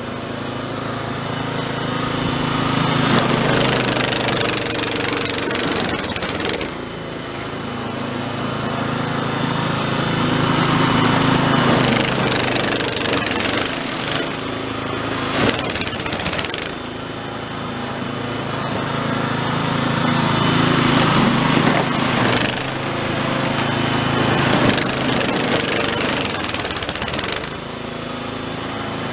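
Toro Snowmaster 724 QXE snowblower's single-cylinder four-stroke engine running under load as the auger cuts through heavy, refrozen snow and the chute throws it. The engine and the rush of thrown snow swell and ease in long waves every several seconds.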